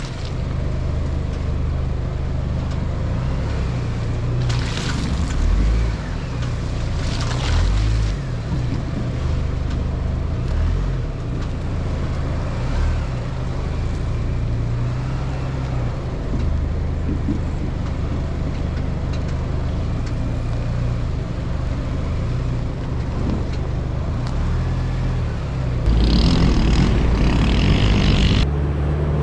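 GMC Canyon pickup driving slowly on a dirt trail, its engine drone rising and falling. There are brief rushing noises about five and seven seconds in, and near the end a louder harsh rush for a couple of seconds that cuts off suddenly.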